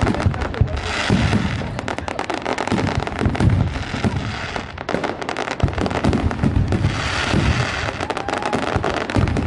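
Fireworks going off: a rapid, dense run of pops and crackles with deeper booms mixed in at intervals.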